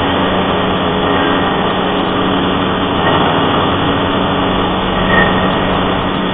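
Motorcycle engine running steadily at cruising speed, heard from on the moving bike, mixed with wind and road noise.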